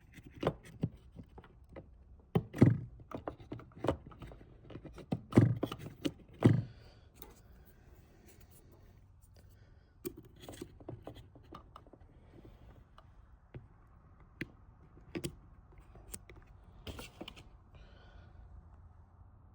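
Irregular small clicks, taps and knocks of plastic parts being handled while the tabs of a ribbon-cable connector are pried open. The loudest knocks cluster in the first seven seconds, then fainter scattered ticks follow.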